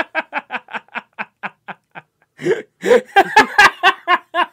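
People laughing: a quick run of short, even ha-ha pulses, then a louder, fuller burst of laughter about two and a half seconds in.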